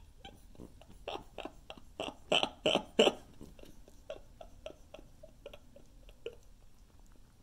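Guinea pig chewing close to the microphone: a run of short, crunchy chews about three a second, loudest about two to three seconds in, then fainter scattered ticks.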